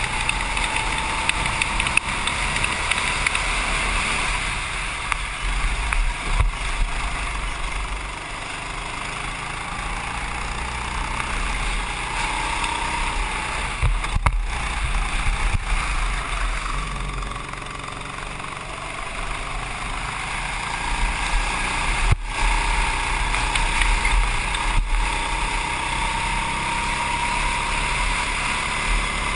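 Go-kart engine running at speed, its pitch slowly rising and falling as the kart speeds up and slows through the turns, with wind buffeting the onboard microphone. A few sharp knocks stand out, the loudest about two-thirds of the way through.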